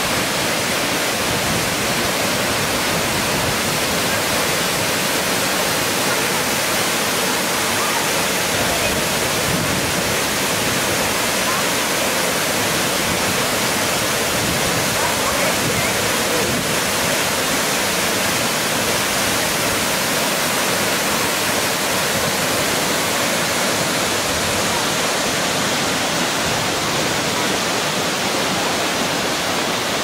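A tall waterfall's falling water, a steady, even rush that does not change.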